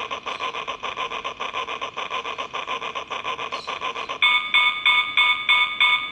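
Battery-operated toy locomotive's electronic sound playing a rapid steam-engine chuffing. About four seconds in, it switches to a louder, tinny whistle tone pulsing about three times a second.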